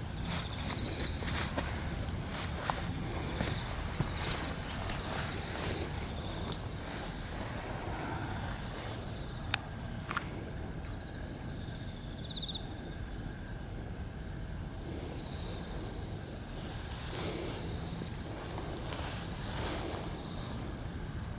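Insects chirping: short pulsed trills repeating about once a second, over a steady high-pitched drone of other insects.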